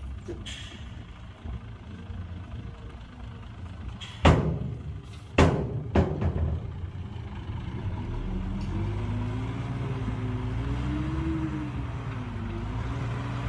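Heavy diesel machinery engine running low, with two loud bangs about a second apart some four seconds in. From about eight seconds the engine works harder, its pitch wandering up and down.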